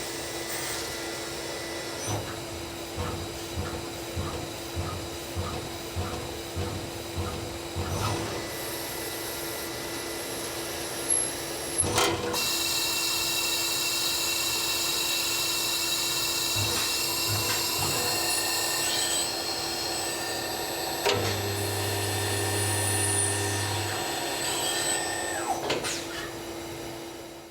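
Citizen Cincom B16E CNC sliding head lathe running through a machining cycle: a steady machine hum with regular knocks during the first several seconds. After a sharp clunk about twelve seconds in, a louder, brighter machining noise takes over, and a low drone joins in for a few seconds near the end.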